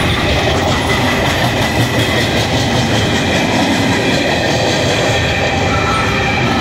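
Empty coal gondola cars rolling past close by: a loud, steady rumble of steel wheels on rail with clickety-clack and rattling, and thin squealing tones from the wheels.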